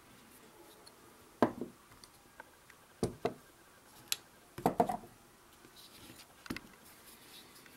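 Button-lock folding knife being flicked open and shut: a series of sharp clicks, several of them in quick pairs, as the blade swings out and locks and then closes.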